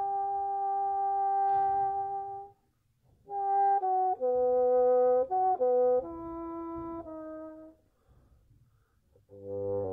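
Bassoon played solo: one long held high note, then after a short pause a phrase of several notes moving up and down, then a brief gap before a lower note starts near the end.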